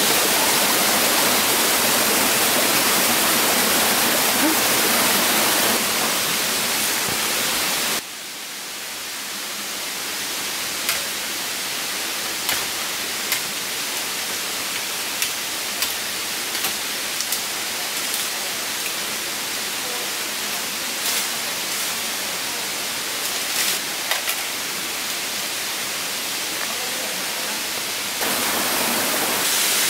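Rushing water of a rocky forest stream for about eight seconds, then it cuts to a quieter forest hush with scattered sharp crackles and snaps of bare feet stepping through dry bamboo leaf litter; the loud rush of water comes back near the end.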